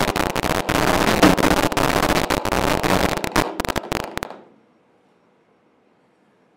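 Loud, dense crackling noise with a low drone underneath, from the performance's soundtrack, breaking up into stuttering cuts and stopping abruptly about four seconds in. After that, near silence with a faint hum.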